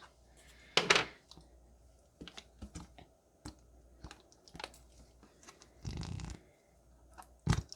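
Slime being handled and pulled apart: scattered small sticky clicks and squelches, with a short stretch of rustling around six seconds in.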